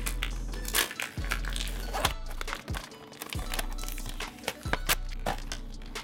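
Background music, with a clear plastic blister pack crinkling and crackling in the hands as its card backing is peeled and torn away, several sharp crackles scattered through.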